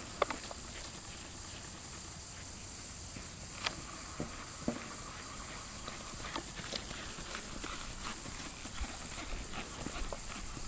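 Hoofbeats of a Quarter Horse gelding moving under saddle on grass and dirt: scattered, irregular soft thuds over a steady hiss.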